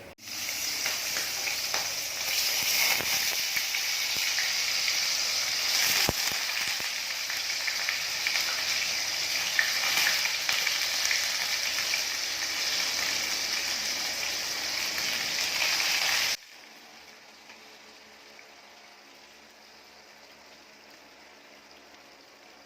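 Food sizzling and crackling in hot olive oil in a frying pan. The sizzle stops suddenly about sixteen seconds in, leaving only faint room tone.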